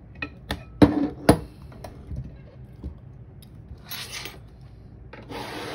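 Metal lockpicking tools and a brass lock cylinder being handled: a few sharp metallic clinks in the first second and a half, then two brief scraping sounds later on.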